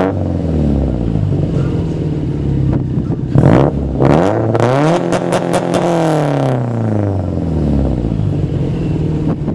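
2011 Subaru WRX STI's turbocharged flat-four idling through an Invidia catless downpipe and N1 non-resonated exhaust, free-revved while parked. There is a quick blip about three and a half seconds in, then a longer rev that rises, holds briefly and falls back to idle.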